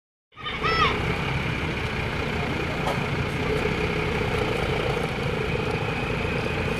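Hino tour coach's diesel engine running at low speed as the bus manoeuvres, coming in after a brief silence. There is a short pitched chirp about a second in.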